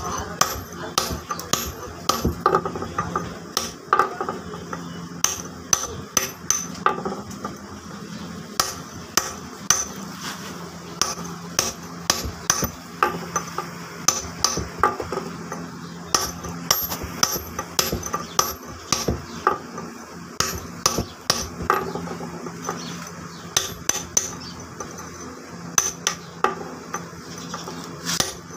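Hammer striking a steel chisel to dress the grooved face of a stone flour-mill millstone. The taps are sharp and repeated, in short runs with brief pauses between.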